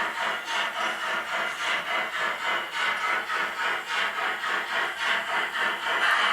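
Sound decoder in a Piko model steam locomotive playing steady exhaust chuffs, about four a second, through the model's small speaker.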